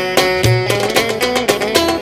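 Turkish folk dance music played live: a busy, ornamented melody over a heavy bass drum beat about once a second.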